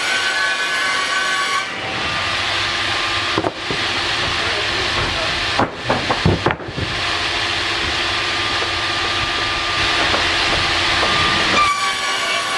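Board edger's circular saws running and ripping a board lengthwise. A steady whine at the start and again near the end, a rushing noise in between, and hard wooden clatters of boards about 3.5 s in and several more around 6 s.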